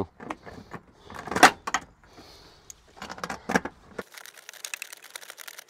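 Ratchet spanner clicking in short strokes as a tail light's securing nuts are done up. A few separate clicks and knocks come first, the loudest about one and a half seconds in, then a fast run of fine clicks over the last second and a half.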